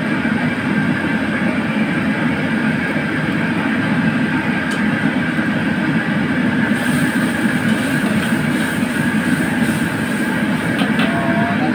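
Steady rushing noise of a commercial wok range's gas burner under a wok of simmering sauce. From about seven seconds in a hiss of sizzling rises over it as soy sauce is ladled into the hot wok and it steams.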